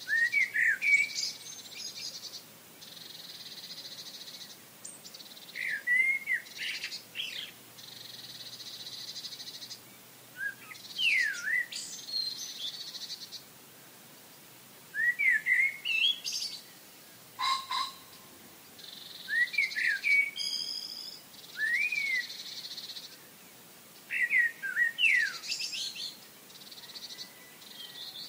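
Songbirds singing in short phrases of quick rising and falling chirps, a new phrase every few seconds. Between phrases a steady high buzz comes and goes.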